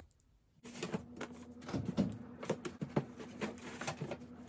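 Books being handled and set into a rolling book cart: after a moment of near silence, a quick irregular run of small knocks, taps and sliding sounds.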